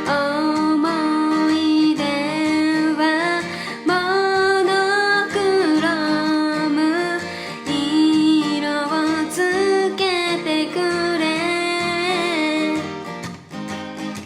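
A woman singing a city-pop song while accompanying herself on a strummed acoustic guitar.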